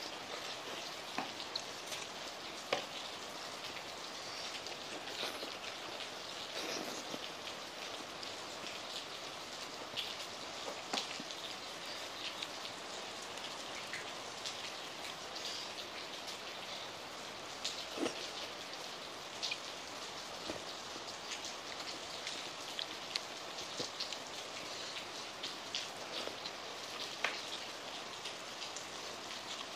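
Heavy rain falling steadily: a dense, even hiss with scattered sharp taps.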